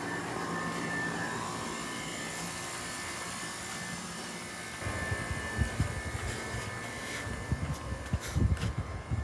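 A steady background hum, then from about five seconds in irregular low thumps and rumbles of the phone's microphone being jostled as it is carried.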